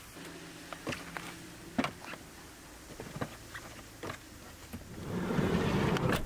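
A few light knocks and scuffs of shoes being stepped out of on a van's door step. Then the Hyundai Starex's sliding side door rolls shut with a rising rush and latches with a sharp click near the end.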